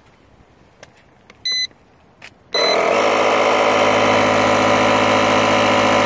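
Stanley FatMax Power-iT 1000A portable air compressor: a few small clicks and a short electronic beep from its control panel, then another beep as the compressor switches on about two and a half seconds in. It then runs loud and steady, pumping air into a car tire.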